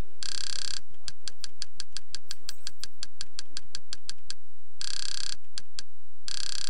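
Kodi's menu navigation click sound repeating rapidly, about six clicks a second, as the add-on list scrolls down one item per click. In three short stretches the clicks run together into a dense buzz.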